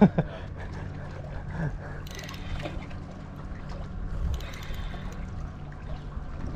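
A boat's motor running with a steady low hum, with water sloshing around the hull and a few faint crackles about two and four and a half seconds in.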